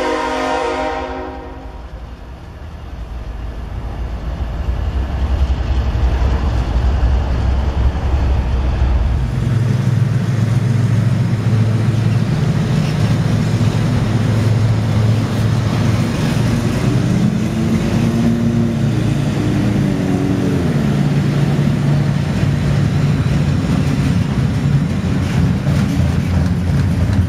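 A freight locomotive's horn finishing a blast about a second and a half in, then the loud, steady rumble and clatter of double-stack intermodal container cars rolling past close by.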